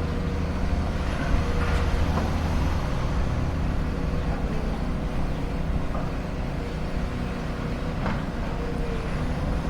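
Excavator's diesel engine running steadily, with a steady tone over it and a few faint knocks.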